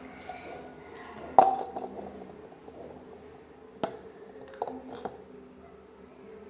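Homemade slime of silicone glue and liquid detergent being handled, with a few sharp clicks and taps, the loudest about a second and a half in.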